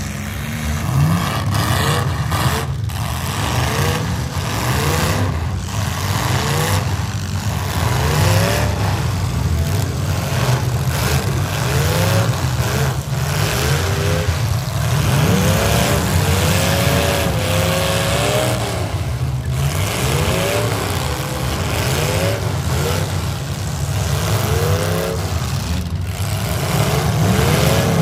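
Several demolition derby trucks' engines running and revving hard over a steady low drone, their pitch rising and falling again and again, with a few sharp bangs of vehicles crashing into each other.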